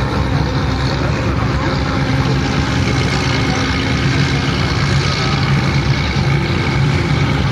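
Engines of fishing boats running steadily at speed as they pass close by, with the voices of a watching crowd.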